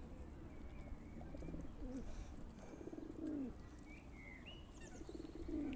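Pigeons cooing: low, rolling coos that fall in pitch, about two seconds in, the loudest around three seconds in, and again near the end. A few short, high chirps from small birds come in between.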